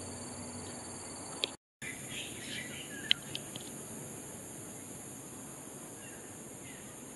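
Outdoor ambience: a steady high insect drone with a few short bird chirps. The sound drops out for a moment about one and a half seconds in. A couple of sharp clicks follow, the loudest about three seconds in.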